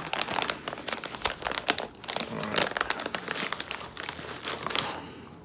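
Plastic snack bag being torn open and handled: a dense run of crinkling and crackling that stops near the end.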